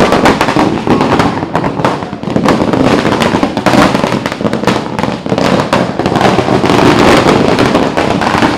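A long string of firecrackers going off in a rapid, unbroken crackle of bangs.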